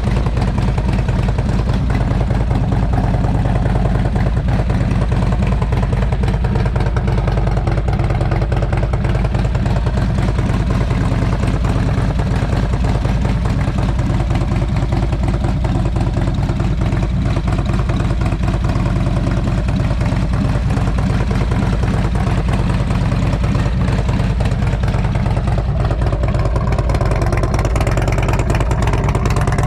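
A vehicle engine running steadily at a constant pace, a low even drone with no change in speed.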